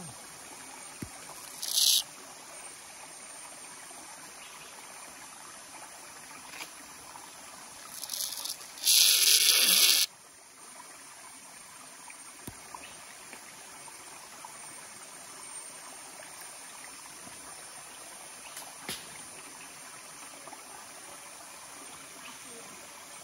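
Small whirlpool in a stream sucking air down its vortex, with water trickling steadily. Twice a loud hissing suction noise breaks out, briefly about two seconds in and for about a second near the middle, the second ending in a falling gulp.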